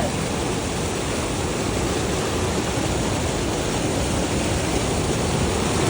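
Steady rush of running water, an even noise with no breaks.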